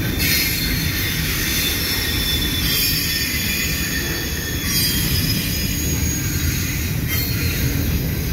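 Double-stack intermodal freight train's well cars rolling steadily past: a continuous low rumble of steel wheels on rail, with a high thin squeal from the wheels that swells a few times.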